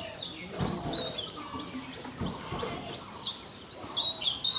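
Birds chirping: short high calls in two clusters, early and again near the end, with two low thuds about half a second and two seconds in.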